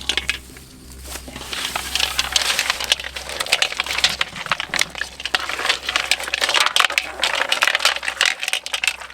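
Dense crackling and splashing of shallow muddy water being churned close by, building about a second and a half in and going on in a thick run of small clicks and spatters.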